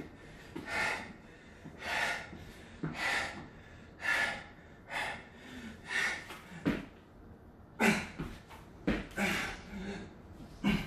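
A man breathing hard from exertion during burpees, short forceful breaths about once a second. A couple of dull thuds come from his hands and feet landing on the exercise mat.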